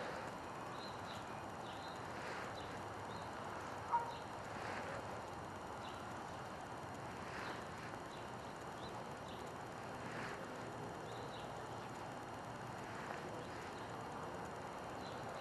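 Faint outdoor background noise, with short high chirps scattered through it and one sharp click about four seconds in.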